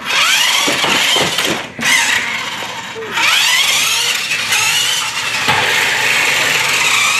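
Small electric motor of a remote-control toy running with a whirring hiss, its whine rising and falling in pitch as it speeds up and slows down; it cuts out briefly about two seconds in.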